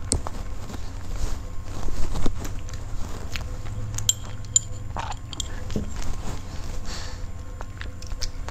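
Close-miked mouth sounds of eating: chewing with scattered small clicks and smacks, and sips from a glass about midway.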